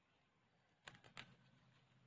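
Near silence, with two or three faint short rustles about a second in as a hand grips the stalks of a potted pechay (bok choy) plant.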